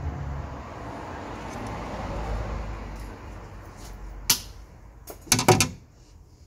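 Double-row steel timing chain being handled over the camshaft sprockets: soft rustling at first, then a sharp metallic click about four seconds in and a brief loud burst of clinking rattles a second later.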